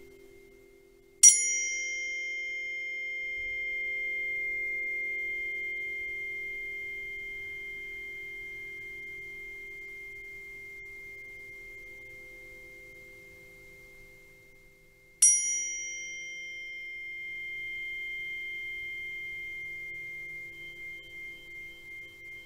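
Sound-bath instruments: a high, bell-like metal tone is struck twice, about fourteen seconds apart, and each strike rings out and fades slowly. A lower steady hum sounds underneath throughout and begins to pulse near the end.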